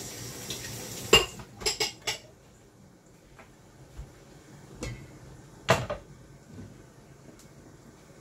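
Metal kitchenware clanking: a quick run of four sharp clinks about a second in, the first the loudest, then two more clanks a little past the middle as the glass lid comes off a stainless steel cooking pot.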